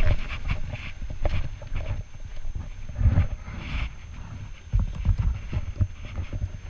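Footsteps on rough limestone rock, heard as irregular low thumps.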